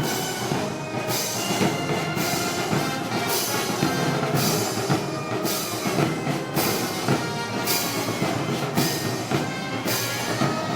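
Festival wind band music: brass playing over drums, with recurring cymbal crashes.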